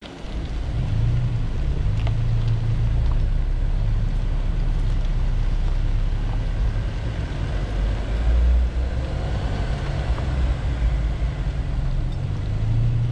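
A 4x4 driving slowly along a rocky gravel trail: a steady low rumble of engine and road noise.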